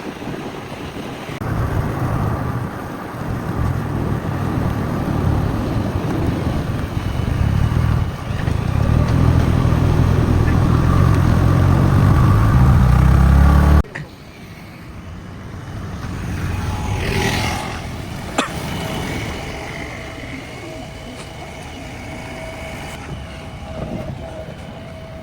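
Engine of a JCB 3DX backhoe loader running under load, growing louder, then cut off abruptly about 14 seconds in. Quieter engine sound with a steady whine follows.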